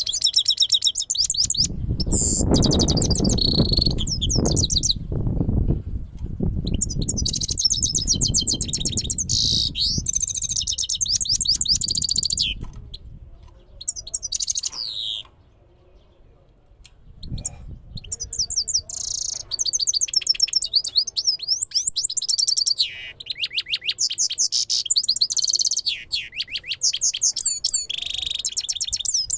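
Caged goldfinch singing: long runs of fast, high twittering trills and chirps that break off for a few seconds past the middle, then start again. A low rumble sits under the song for a few seconds near the start.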